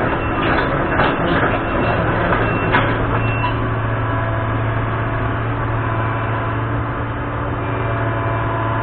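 Kobelco SK220LC hydraulic excavator working on a demolition, its diesel engine droning steadily, with several short knocks and clanks in the first three seconds.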